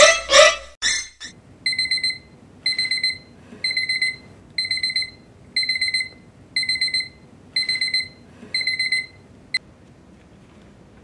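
A woman's scream that cuts off about a second in, followed by a phone alarm beeping: short runs of quick, high, steady-pitched beeps repeating about once a second, eight times, then stopping abruptly.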